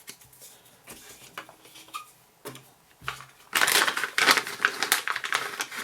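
Small plastic parts bags crinkling and rustling as hardware is handled, with a few light clicks, swelling to a loud crackle in the second half.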